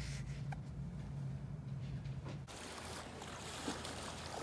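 A steady low hum, then, after a sudden change about two and a half seconds in, an even rushing noise of water splashing and lapping around a floating foam mat.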